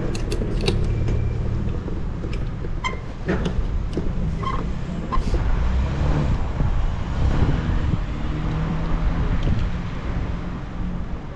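Street noise heard from a moving bicycle: steady low wind rumble on a GoPro action camera's microphone, with passing city traffic. A string of sharp clicks and rattles comes in the first five seconds.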